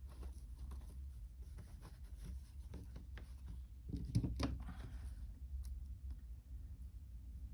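Thin jewellery wire being threaded and drawn through a small wire loop: faint scratching and ticking of metal on metal, with a louder cluster of clicks about four seconds in.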